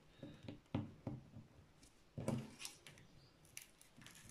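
Quiet handling noises from fingers lifting and smoothing the plastic protective film on a diamond-painting canvas laid on a table. There are a few light knocks and rustles, the loudest about a second in and about two seconds in.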